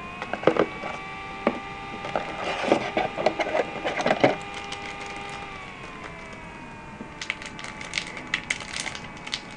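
Clusters of sharp plastic clicks and crackles as a newly unboxed MGC 7x7 speed cube and its plastic packaging are handled, the pieces clicking against each other. Two bursts, with a lull in the middle. Behind them a faint steady hum with several tones drops slightly in pitch about halfway through.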